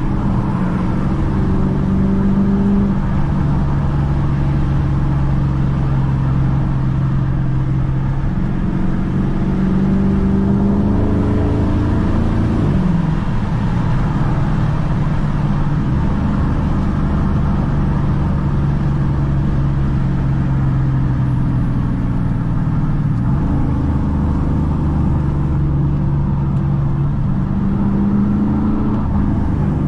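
2012 Dodge Challenger R/T's 5.7-litre Hemi V8 engine and exhaust under way at moderate speed, steady for long stretches with the engine note rising and falling a few times, over tyre and road noise.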